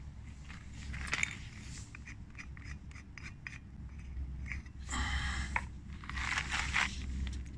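Short scrapes, rustles and clicks of handling, with a longer scraping burst about five seconds in, over a steady low rumble.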